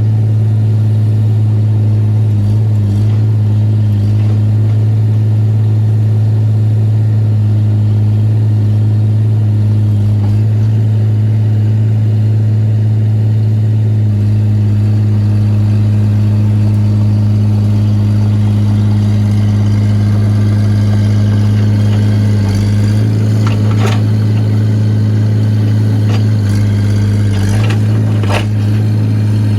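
Excavator's diesel engine running at a steady speed, a constant loud drone, with a couple of sharp knocks near the end.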